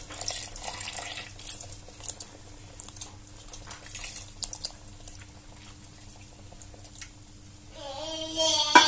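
Canned milk poured in a thin stream into a pot of soup: a soft trickle with small splashes. Near the end a young child's voice starts babbling.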